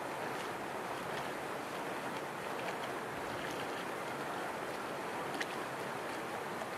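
Small outboard motor on an inflatable boat running at speed, heard from a distance as a steady rushing noise blended with the wash of its wake, with no clear engine note.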